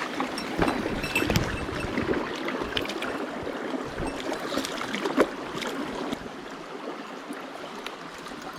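Mountain stream running over rocks, with scattered short clicks and knocks over the water noise in the first six seconds.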